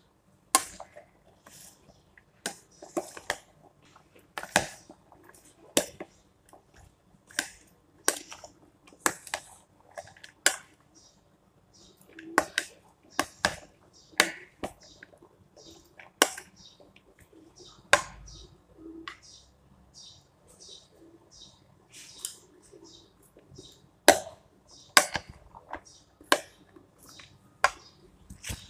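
A plastic serving spoon tossing a chopped salad of sweetcorn, cucumber and onion in a plastic bowl. Sharp knocks of the spoon against the bowl come irregularly, about once a second, between softer rustling of the vegetables, with a quieter stretch a little past the middle.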